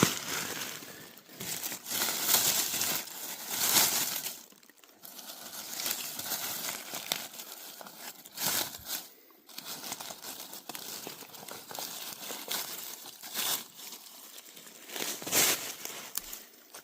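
Dry leaf litter crunching and rustling in irregular bursts.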